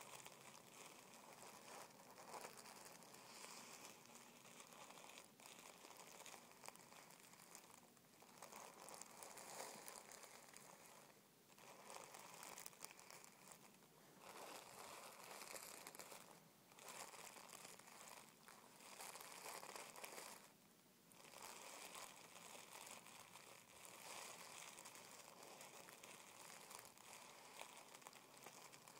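Fingertips rubbing and crinkling tissue paper: a faint, continuous crackly rustle, with a few brief pauses.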